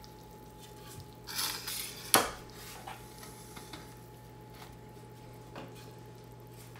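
A short scraping rustle, then a single sharp clack of a hard kitchen item set down on the stone countertop about two seconds in, with a few faint ticks afterwards. A steady low hum runs underneath.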